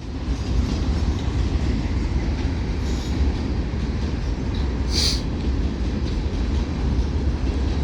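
Freight cars of a Kansas City Southern local train rolling past, a steady low rumble of wheels on rail. A brief sharp high-pitched sound cuts through about five seconds in.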